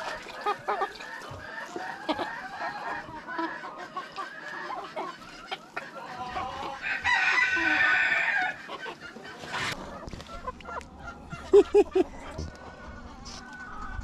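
Chickens clucking, with a rooster crowing for about a second and a half some seven seconds in. Three short, loud calls follow close together a few seconds later.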